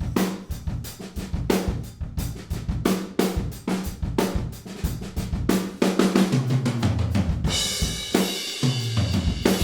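Recorded acoustic drum kit played back in full: a steady groove of kick drum, snare and hi-hat. About six seconds in, a fill steps down in pitch across the drums, and it ends in a ringing cymbal crash.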